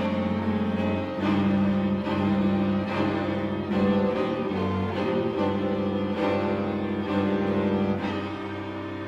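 Slow music of low bowed-string notes, cello-like, each note held for about a second before the next.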